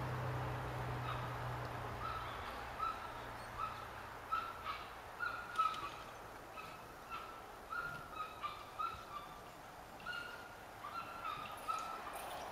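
A bird calling over and over in short, pitched notes, roughly two a second. A low hum fades out in the first couple of seconds.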